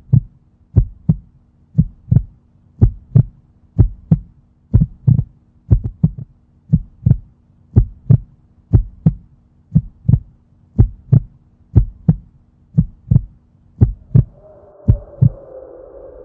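Heartbeat sound effect: paired lub-dub thumps about once a second over a faint low hum. Near the end the beats stop as a higher sustained droning tone fades in.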